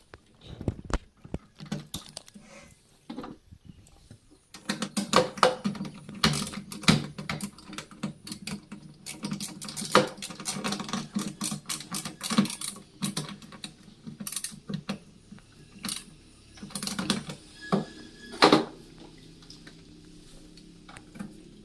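Irregular clicking and knocking of plastic parts and screws as a refrigerator thermostat's sensing bulb and its plastic holder are fitted and screwed into the freezer compartment. The clicks come thick and fast for most of the stretch and thin out near the end.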